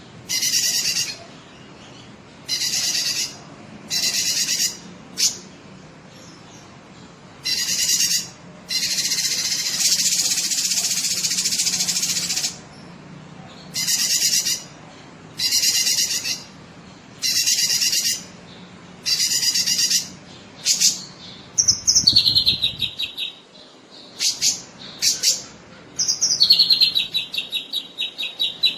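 Cucak kinoi songbird singing loud, repeated phrases about a second long, with one longer phrase of about four seconds near ten seconds in. About three-quarters of the way through, the song changes to fast chattering trills that fall in pitch, ending in a long rapid trill.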